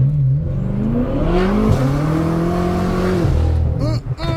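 BMW M6's twin-turbo V8 pulling hard under acceleration, heard from inside the cabin. The engine note climbs, drops sharply at an upshift about a second and a half in, climbs again, then falls away just past three seconds.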